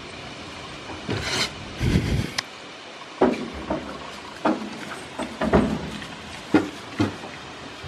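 Goats knocking and bumping against the wooden boards of their pen: irregular knocks, several in the second half, after a louder rustling, thumping stretch about a second in.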